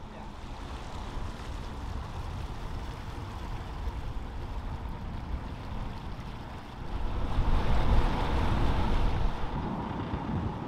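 Water churning and rushing past the stern of a moving catamaran, where a kicked-up rudder blade drags along the surface after striking mud. Wind buffets the microphone, with a low rumble that grows louder about seven seconds in.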